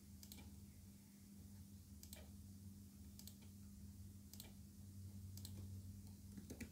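Faint computer mouse clicks, about five of them a second or two apart, over a steady low hum.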